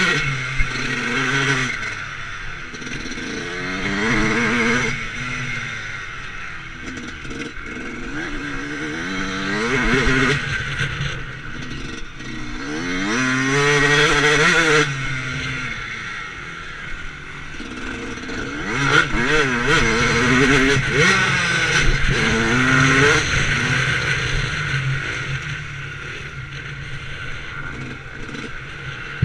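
Yamaha YZ125 two-stroke motocross engine heard from the bike itself, the revs climbing and falling again and again with the throttle and gear changes, with several hard accelerations.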